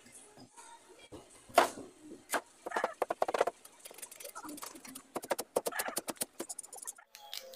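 Kitchen knife chopping a peeled fresh bamboo shoot on a plastic cutting board. A few single knocks, then fast runs of quick chops as the shoot is sliced thin.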